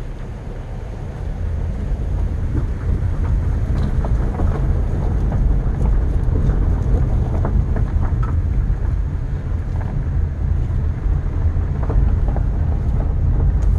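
Steady low rumble of a car driving, with wind buffeting the microphone, growing louder over the first couple of seconds.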